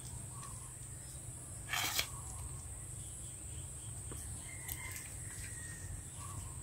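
Quiet creekside ambience with a faint, steady high insect buzz, and one short rustling swish about two seconds in.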